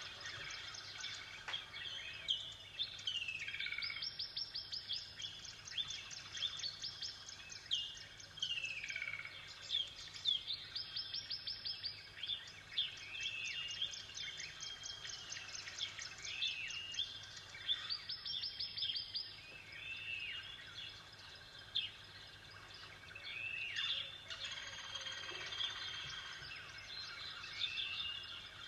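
Songbirds singing: rapid high trills that come back every few seconds, mixed with many short down-slurred chirps.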